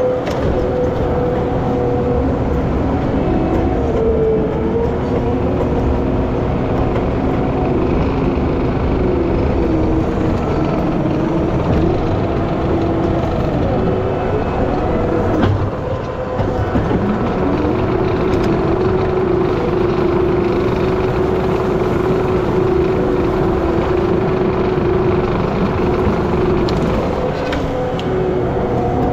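Skid steer engine running at high revs under load, heard from the operator's seat, with a whining tone that sags in pitch and climbs back as the machine pushes brush and digs dirt.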